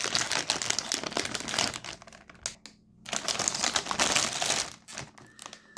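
Plastic cookie wrapper crinkling as it is handled, in two bouts of crackling separated by a short pause about halfway through.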